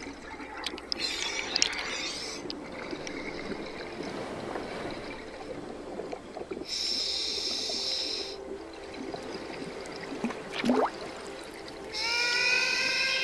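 Scuba diver breathing underwater through a regulator: a hissing inhalation about a second in, another near the middle and a third near the end, with bubbling, gurgling exhalations between. A short rising squeak comes just before the last breath.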